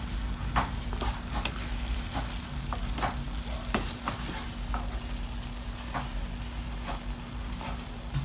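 A spatula stirring and scraping thick shrimp and mango curry around a frying pan, in irregular strokes that are busiest in the first half, while the curry sizzles in its oil.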